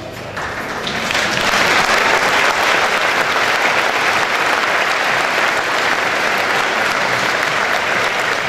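Audience applauding, the clapping swelling over the first second or so and then holding steady.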